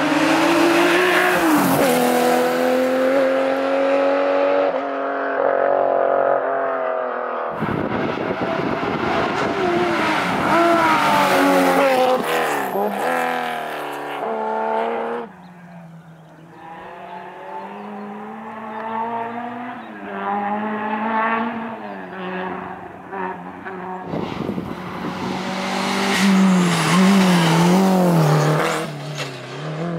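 Historic rally car engines revving hard under full throttle, their pitch climbing and dropping through gear changes as cars drive through a stage. The sound changes abruptly a few times as one car gives way to the next.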